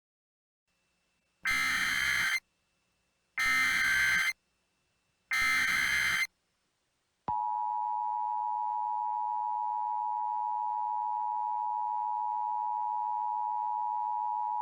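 Emergency Alert System tones: three short bursts of SAME header data, about a second each and two seconds apart, then the steady EAS two-tone attention signal starting about seven seconds in.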